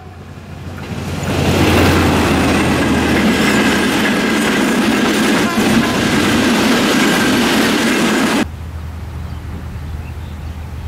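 Diesel locomotive and its coaches of an express passenger train passing close by, with a dense running rumble and the clatter of wheels over the rails building up over the first two seconds. The sound cuts off suddenly about eight seconds in, leaving a quieter steady low hum.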